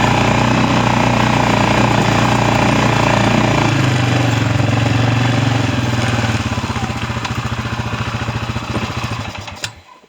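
Small vehicle engine running steadily, then switched off: from about six seconds in it slows, its firing pulses spreading apart, and it stops shortly before the end.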